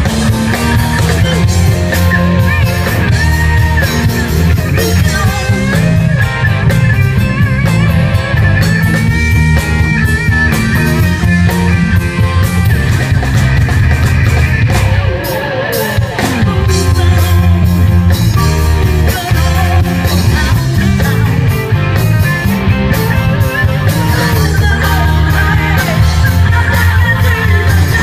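Live rock band playing loud: electric guitars, bass and drums, with a woman singing. The bass and drums drop out briefly about fifteen seconds in, then the full band comes back.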